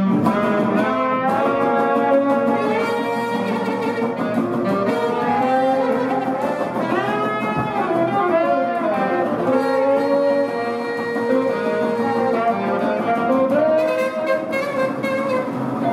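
Small traditional jazz band playing together: trombone, trumpet and saxophone lines over acoustic guitar and upright bass.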